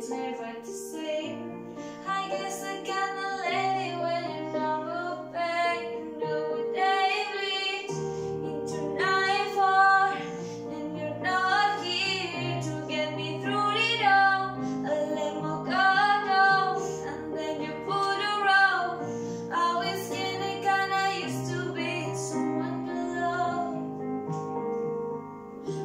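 A woman singing, holding long notes, over an instrumental backing track of sustained chords.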